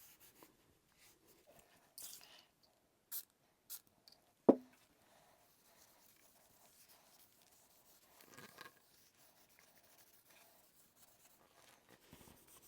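Cloth rubbing oil onto the rifle's metal trigger guard plate: faint scuffing and wiping, with one sharp knock about four and a half seconds in as something hard is set down or bumped.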